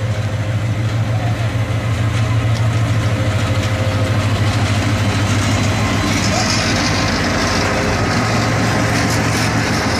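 Diesel-electric locomotive passing close at low speed, its engine's steady low drone growing louder over the first couple of seconds. From about six seconds in, a hissing rush with scattered clicks joins as the locomotive and the first coach go by.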